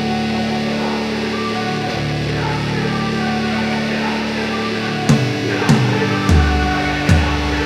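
Intro music: sustained guitar chords, joined about five seconds in by hard drum hits in a rock or metal style.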